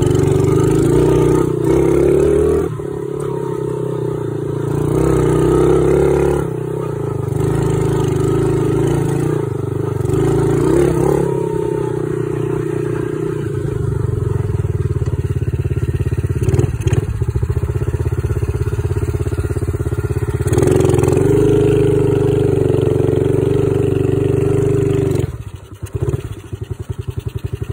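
Apollo 70 dirt bike's small single-cylinder four-stroke engine running while the bike is ridden, its note rising and falling with the throttle. Near the end the revs drop and the engine settles into an uneven low-speed running. The bike has been fitted with a new carburetor to cure its stalling.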